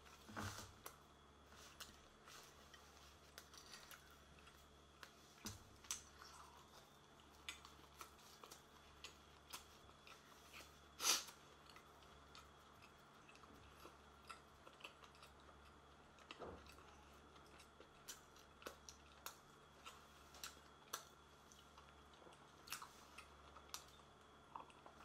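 Faint chewing and small clicks of tableware from someone at the table finishing a meal, sparse and irregular, with one sharper click about eleven seconds in, over a low steady hum.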